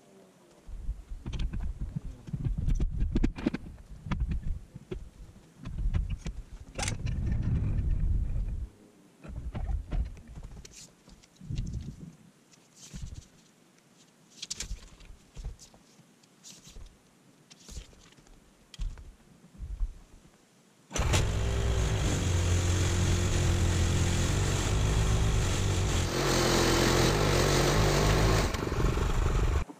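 Woodworking knocks and thumps, then scattered sharp taps; about two-thirds of the way in a power tool starts abruptly and runs loudly and steadily, its sound shifting briefly higher before it cuts off at the end.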